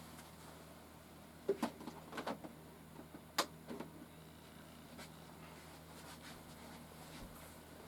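Rubik's cube being turned by hand: a scattering of sharp plastic clicks at uneven intervals, two of them louder than the rest.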